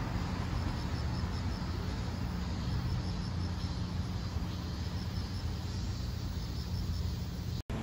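Insects chirping in a faint, evenly repeating high pulse over a steady low rumble.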